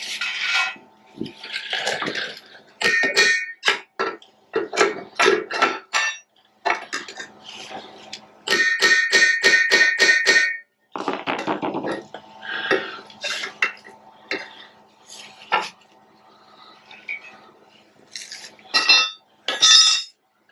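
Metal clanking and striking of hand tools on steel machine parts, with ringing after the hits. About halfway through there is a quick run of ringing strikes, roughly five a second, under a faint steady hum.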